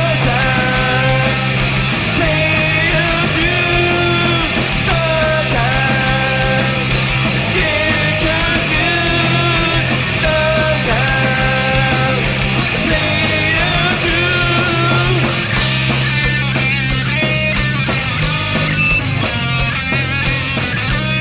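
Rock band playing live: electric guitars, bass and drums, with a steady drum beat under held melodic lines.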